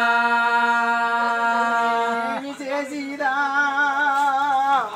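A single voice singing a Telugu devotional folk song to the goddess Gangamma. It holds one long steady note for about two seconds, breaks off briefly, then holds another long note with a wavering vibrato.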